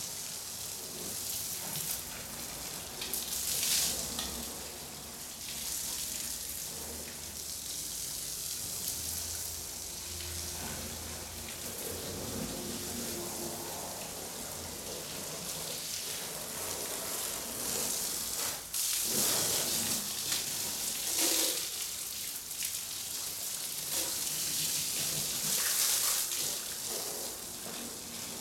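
Water from a garden hose spray nozzle hissing and spattering on a car's windshield and bodywork. It surges louder at moments as the spray is swept across the car.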